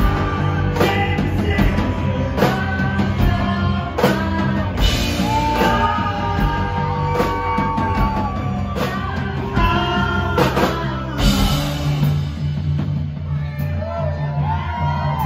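Live rock band playing: a steady drum beat, bass and keyboards, with a voice singing over them.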